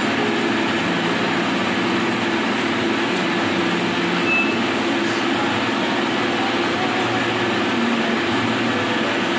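Steady running noise of workshop machinery, an even mechanical drone with a low hum that does not change while the lathe chuck is stopped and a part is handled.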